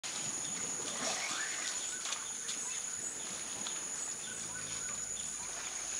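Forest clearing ambience: a steady, high-pitched insect chorus, with birds calling and a few faint clicks.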